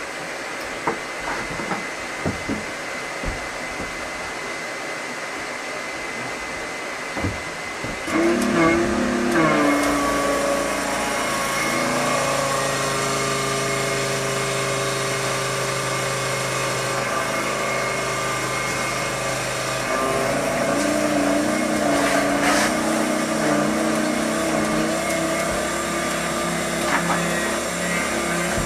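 A steady pump hum from the biodiesel processor circulating warm oil, with a few clicks. About eight seconds in a small 12-volt pump starts up and runs on with a louder motor whine whose pitch wavers, as it injects the methoxide into the oil.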